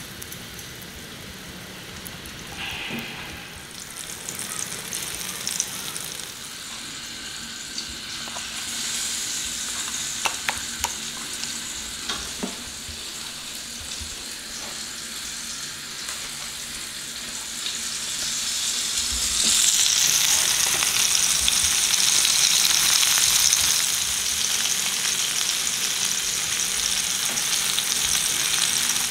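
Tol fish coated in rice flour and semolina frying in hot oil in a shallow non-stick pan: a steady sizzle that swells about two-thirds of the way through, with a few light clicks. The sizzle is the fish's inner moisture still cooking out; by the cook's rule it stops once the fish is cooked through.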